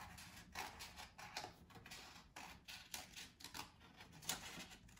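Scissors snipping through a folded sheet of paper, cutting out a paper stocking: faint, irregular short snips, about two or three a second.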